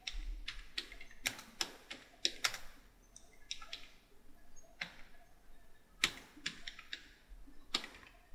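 Faint, irregular keystrokes on a computer keyboard as a short phrase is typed.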